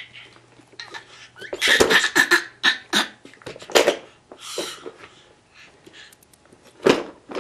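A baby's excited breathy squeals and shrieks in a string of short bursts, thickest from about a second and a half to four seconds in, with one more near the end.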